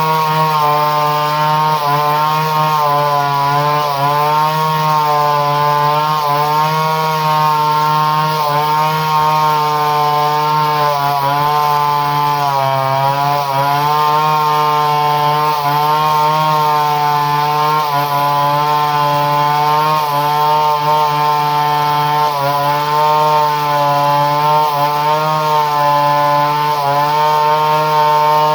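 Two-stroke chainsaw engine running steadily at high speed, its pitch wavering with small dips now and then.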